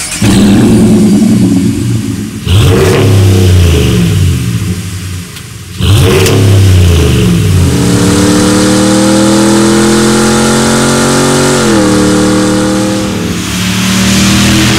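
5.7-litre Hemi V8 of a RAM 1500 pickup through a Borla aftermarket exhaust. It gives three sharp revs that each fall away, then accelerates hard with the pitch climbing. The pitch drops briefly at an upshift about twelve seconds in, then climbs again.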